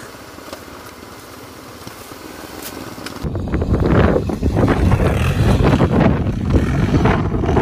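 Off-road motorcycle running on a dirt track, steady and moderate at first. About three seconds in it becomes much louder and rougher, with an uneven rise and fall, and stays that way.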